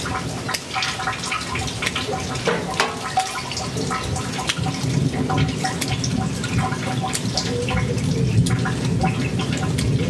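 Steady rain falling, with many individual drops dripping and splashing close by.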